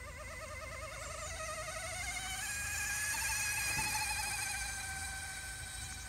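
Small radio-controlled nano hydroplane model boat on a speed run: its little motor gives a high, wavering whine that rises slightly in pitch. The whine grows louder to a peak about four seconds in as the boat passes, then fades.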